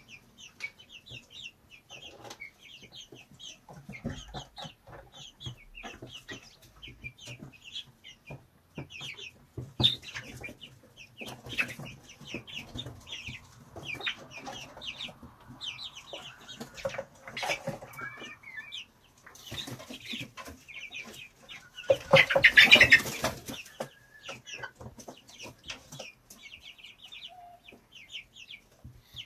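Young chicks peeping in quick, high, falling chirps, with a hen clucking now and then. About three-quarters of the way through comes one loud, noisy burst lasting about a second.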